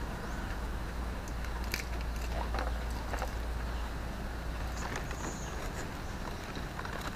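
Coconut palm leaflets rustling and crackling as they are handled and woven, a few short crackles scattered through, over a steady low rumble.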